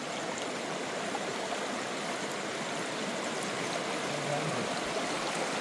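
Shallow rocky stream rushing steadily, water pouring over and around the stones.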